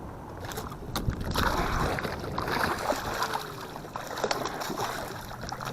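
Water sloshing and splashing, with scattered sharp clicks; it swells about half a second in and eases off near the end.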